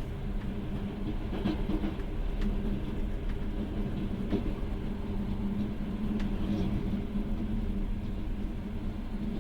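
Passenger train carriage running along the track, heard from inside: a steady rolling rumble with a constant low hum and a few faint clicks.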